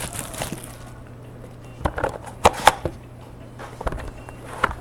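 Hands handling a cardboard box of trading cards as it is opened: scattered knocks and light rustles. A steady low hum runs underneath.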